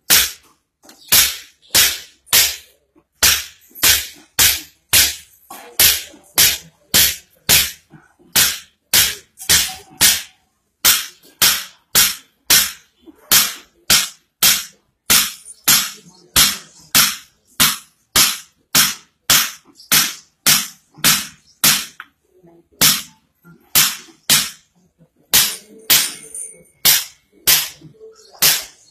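Hammer blows on a man's back, a long run of sharp smacks at about two to three a second, with a few brief pauses.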